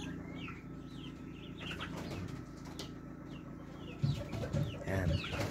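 Caged chickens clucking, with many short high chirps throughout over a steady low hum; the clucking gets louder from about four seconds in.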